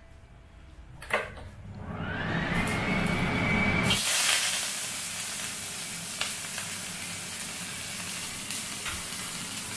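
Shredded cabbage tipped into a hot wok about four seconds in, setting off a sizzle that goes on steadily as it fries. Before that, a rising whine and a low rumble build up.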